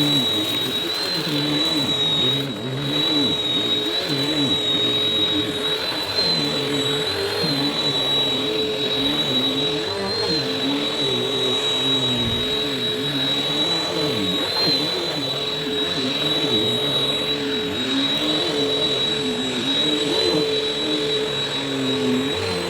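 Vacuum cleaner running with its brushroll spinning. A steady high motor whine sits over a lower hum that wavers in pitch.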